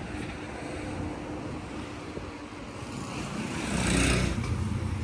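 Street traffic noise, with a motor vehicle passing close by, loudest about four seconds in.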